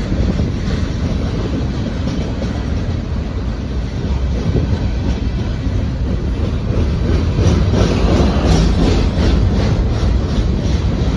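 CSX freight train's container flatcars rolling past: a steady rumble of steel wheels on rail, with a run of rapid wheel clicks over rail joints from about seven seconds in.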